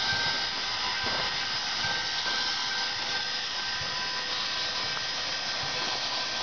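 Nickel Plate Road 765, a 1944 Lima 2-8-4 Berkshire steam locomotive, standing with steam hissing steadily. A faint steady whine runs over the hiss.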